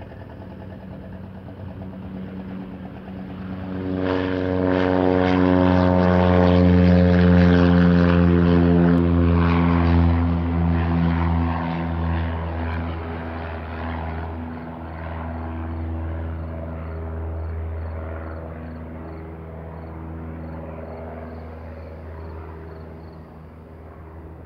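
A 1975 Mooney M20F's four-cylinder Lycoming engine and propeller running at takeoff power. The sound grows sharply louder about four seconds in as the plane goes past, and stays loudest for several seconds with its pitch falling slightly. Then it fades steadily as the plane climbs away.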